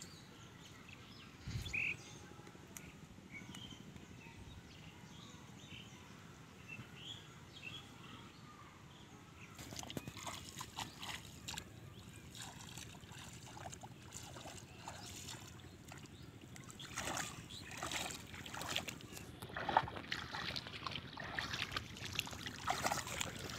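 Bare feet and hands splashing and sloshing through the shallow water of a flooded rice paddy, wading steps that start about a third of the way in and grow busier near the end.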